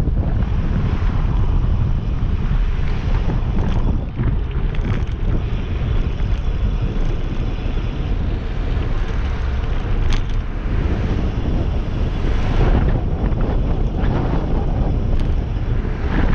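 Wind noise on a GoPro Hero 7's microphone while riding a single-speed bicycle: a steady, loud low rumble.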